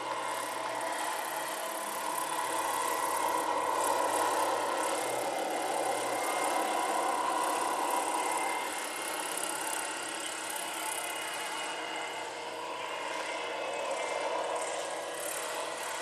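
Large electric scale-model AH-1 Cobra helicopter in flight: a steady whir of rotor and electric motor with thin, even whining tones. It swells a little about four seconds in and eases off around twelve seconds.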